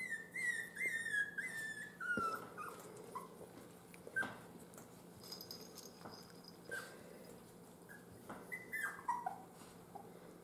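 Miniature schnauzer puppies whimpering: a run of high, falling whines in the first few seconds, a few short squeaks, and another falling run of whines near the end.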